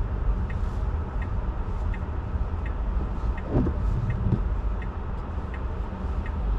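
Steady low road and tyre rumble from a Tesla Model 3 being driven on a snowy road, with no engine note. A light regular ticking runs about three times a second, and a brief higher sound rises through it about halfway through.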